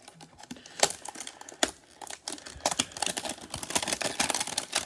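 Clear plastic shrink-wrap on a trading-card hanger box crinkling and tearing as it is pulled off by hand. Irregular crackles, with a couple of sharp snaps in the first two seconds, grow denser from about halfway.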